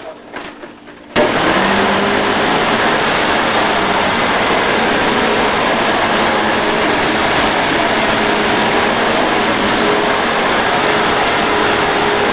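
Hoover WindTunnel self-propelled upright vacuum cleaner switched on about a second in, its motor then running with a steady loud rush of air.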